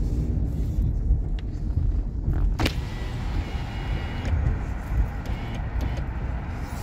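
Steady low rumble of a car heard from inside the cabin, with a single sharp click about two and a half seconds in.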